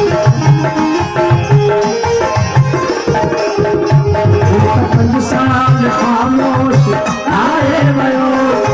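Live Sindhi folk music: a harmonium playing the melody over a regular rhythm of hand strokes on a dholak.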